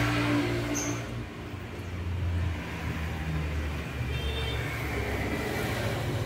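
Motor traffic passing on a road: a low engine rumble that swells and fades twice.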